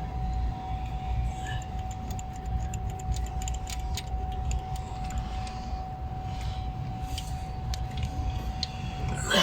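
Light metallic clicks and clinks of a socket and extension on a new spark plug as it is threaded into the cylinder head, over a steady low rumble and a faint steady whine.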